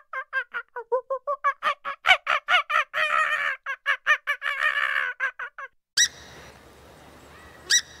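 A rapid run of short, honk-like animal calls, about six a second, louder and more crowded in the middle. It breaks off suddenly. After a cut about six seconds in, two brief shrill calls follow over a steady hiss.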